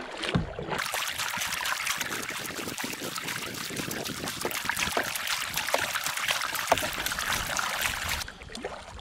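Kayak paddle strokes: water splashing and trickling off the paddle blades in a dense, irregular hiss that starts about a second in and stops shortly before the end, with a few knocks of the paddle.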